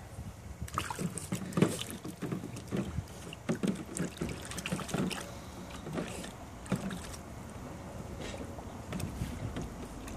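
Pool water splashing and sloshing irregularly as a dog plays in it. The splashes come thickest over the first seven seconds, then ease off to a few scattered ones.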